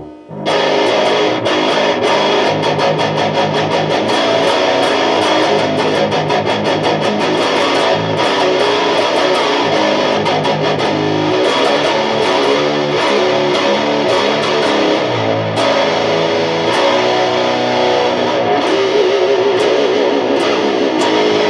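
Distorted electric guitar riffing with heavy low chugs, played on the bridge Bare Knuckle Warpig ceramic humbucker through a Mesa/Boogie Dual Rectifier tube amp (channel 2, vintage mode, gain at noon) and picked up by a camera microphone. It starts about half a second in and runs on without a break.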